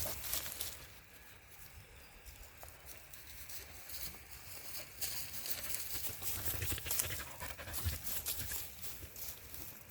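A dog panting, with scattered light rustles.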